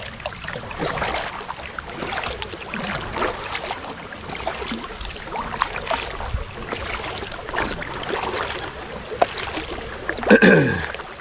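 Kayak paddling on a river: the paddle dipping and splashing with dripping water, and light rain spattering around. About ten seconds in there is a short, loud sound that falls in pitch.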